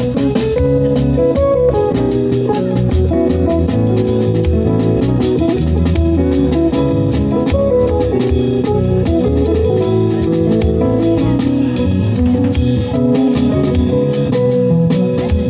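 A band playing: electric guitar and bass over a drum kit, with a steady beat.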